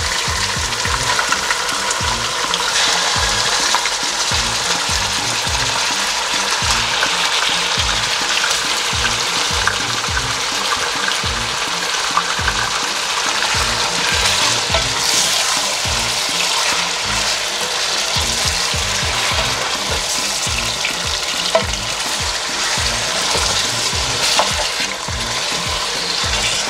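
Raw chicken thigh pieces sizzling in hot oil with fried onions in a pot, with a steady hiss. A wooden spoon stirs and turns them, knocking against the pot many times.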